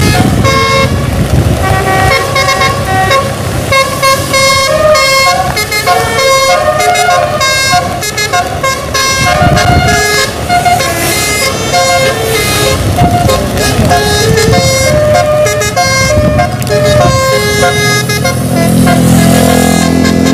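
Bus telolet musical air horn playing a melody of short notes that step up and down in pitch, over the low rumble of the bus's engine. Near the end a lower-pitched run of notes takes over.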